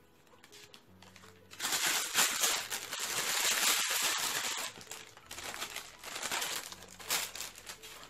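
A bag crinkling and rustling loudly as hands grab and move it, in two stretches, the first and longer starting about a second and a half in.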